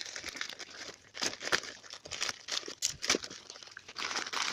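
Plastic packaging crinkling and rustling in irregular bursts as it is handled and pulled open.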